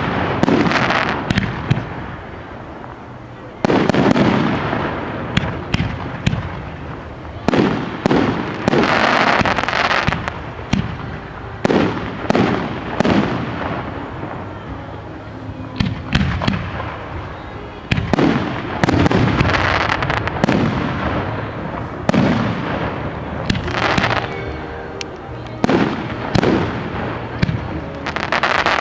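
Fireworks display: shell bursts going off one after another every one to four seconds, each a sharp bang with a trailing crackle and echo.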